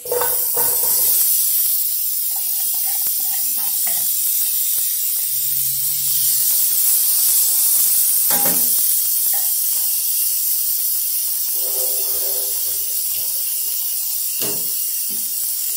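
Sliced onion, green pepper and tomato sizzling in a hot frying pan on the browned pan scrapings, a steady hiss that starts as they drop in. A couple of short knocks come through it, about halfway and near the end.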